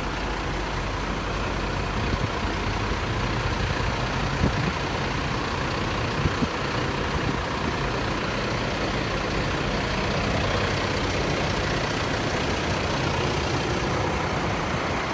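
Large fire engine's diesel engine idling as a steady low rumble, with street noise over it and a few short knocks in the first half.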